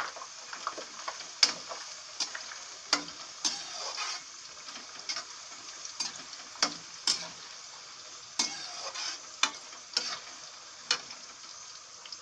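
Browned onion and freshly added carrot sizzling in hot oil in a kadai, stirred with a slotted metal spatula that clacks and scrapes against the pan about a dozen times at irregular intervals.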